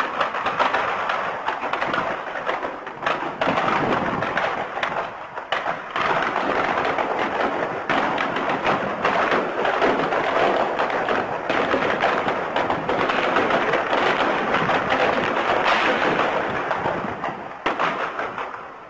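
Burning tank, with a dense, continuous crackling and popping of its ammunition cooking off in the fire. It cuts off abruptly near the end.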